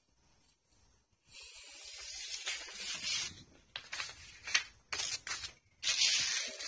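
Paper and plastic bubble-wrap packing rustling and crinkling as they are handled in a cardboard box. It starts about a second in and comes in uneven bursts with a few sharper crackles.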